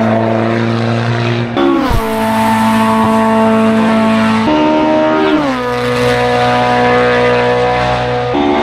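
Hill climb race car engine running hard at steady revs, its pitch stepping up and down suddenly a few times.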